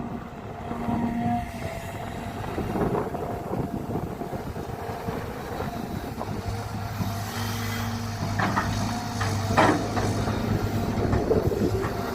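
Caterpillar 320 GC excavator working: its diesel engine runs steadily, and a low hum grows stronger about six seconds in. Metallic clanks and a short squeal come a little past the middle.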